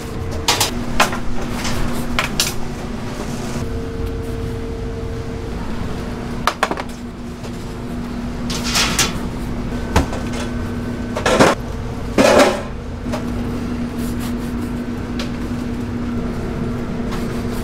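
Metal baking trays and utensils clattering and knocking as buns are handled, several sharp strikes scattered through, the loudest about two thirds of the way in, over a steady low hum.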